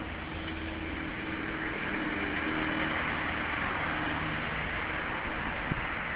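Steady street and traffic noise heard from a bicycle on rain-wet roads: a hiss that swells around the middle, with a low engine hum underneath and a single short knock near the end.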